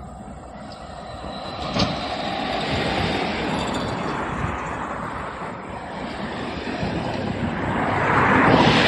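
Norfolk Southern freight train approaching behind several diesel locomotives: a steady rumble that grows louder, loudest near the end. A single sharp click about two seconds in.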